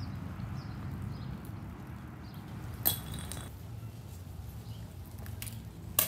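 An icicle dropping from the roof edge and shattering with a sharp, glassy clink about three seconds in, and a fainter click near the end, as the icicles melt and fall in the sun.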